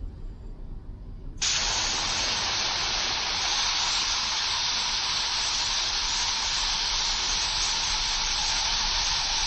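RN-8900 air spray gun triggered about a second and a half in, blowing a loud, steady hiss of compressed air that holds without a break. A low hum runs beneath it.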